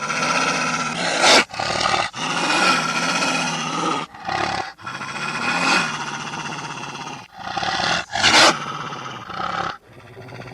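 Wolves growling and snarling in rough, pitched bursts, with two loud sharp snarls, one about a second in and another near the end.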